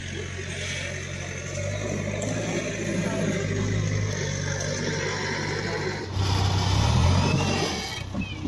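Front loader's diesel engine running steadily, then revving louder and higher in pitch about six seconds in as it works the bucket, settling back near the end.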